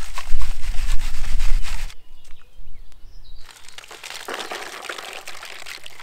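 For the first two seconds, a low rumble with crunching steps on soil and grass. From about three and a half seconds in, sifted gravel rattles out of a plastic crate into a bucket of water.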